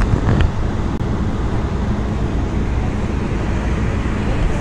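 Steady rumble of a car ferry under way, heard from its open deck with wind blowing on the microphone.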